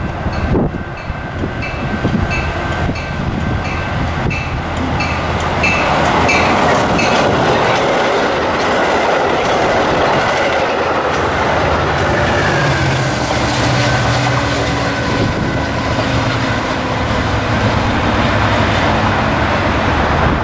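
Metra commuter train of bilevel passenger cars passing close by the platform: the rumble and clickety-clack of wheels on rail builds from about six seconds in and stays loud. A regular high ping sounds about twice a second before the train arrives.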